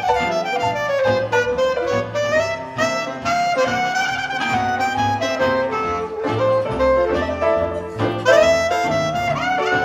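Clarinet playing a bending, melodic jazz solo over double bass and band accompaniment.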